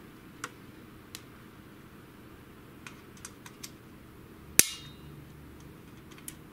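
Small clicks of a screwdriver tip working at the coil spring and plastic parts of an inkjet printer's printhead carriage, with one sharp, loud snap about four and a half seconds in.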